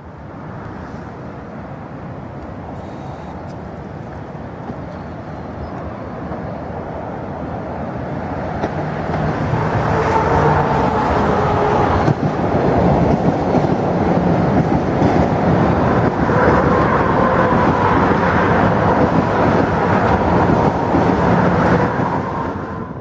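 Metro-North M7A electric multiple-unit train approaching and passing beneath. Its noise grows louder over the first ten seconds and then stays loud, with faint steady tones over the rail noise.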